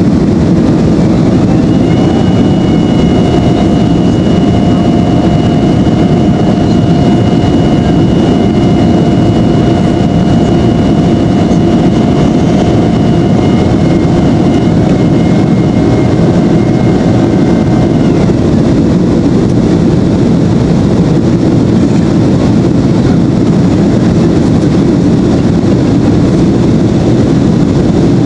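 Cabin noise of a Boeing 767-300ER airliner in climb, heard from a seat over the wing: a loud, steady rush of jet engines and airflow. A steady high whine rides over it from about two seconds in and fades out a little past the halfway point.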